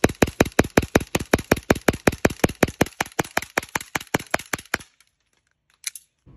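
Airsoft Glock-style pistol firing a rapid, even string of shots, about seven a second, stopping abruptly about five seconds in. One short click follows near the end.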